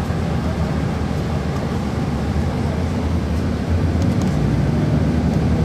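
Cummins ISC diesel engine of a 1999 Nova Bus RTS transit bus running, heard from on board as a steady low drone that grows a little louder in the last couple of seconds.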